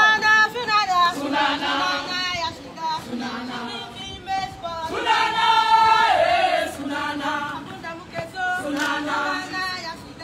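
Marching cadets singing a military marching song together in chorus, with some long held notes midway through.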